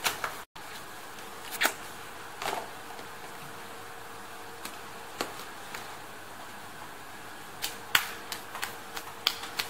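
Light plastic clicks and knocks as small lidded tubs and a cardboard box are set into a toy plastic shopping cart. They are scattered at first and come thicker near the end, over a faint steady hum.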